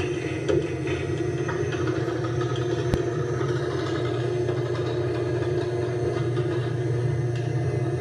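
Craftsman garage door opener running as it moves the door: a steady motor hum with a light rattle from the drive, and a single click about three seconds in.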